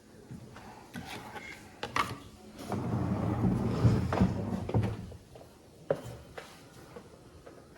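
Handling of a homemade puzzle box: several sharp knocks and clicks, and a low scraping slide lasting about two seconds in the middle, like the box or a part of it being pushed and turned.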